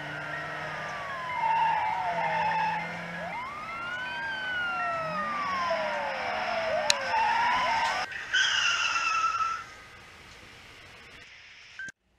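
Several sirens wailing, their pitch sliding up and down and overlapping. A louder falling tone comes in about eight seconds in, then the sound drops away and cuts out briefly near the end.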